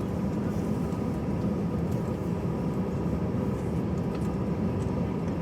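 Steady drone of an Airbus A320-214's CFM56 turbofan engines at taxi power, heard from inside the passenger cabin, with a faint steady whine over the low rumble.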